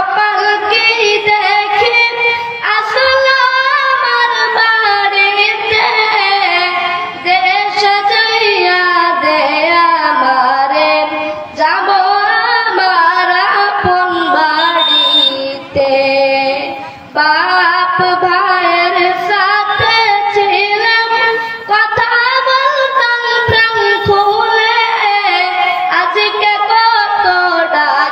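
A boy singing a gojol, an Islamic devotional song, into a microphone in a high child's voice. Long wavering phrases are broken by short pauses for breath.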